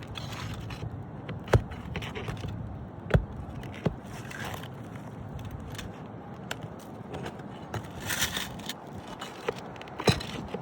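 Scraping on old asphalt roof shingles with four sharp clicks, the loudest about 1.5, 3 and 10 seconds in, as nails are worked loose to free a shingle.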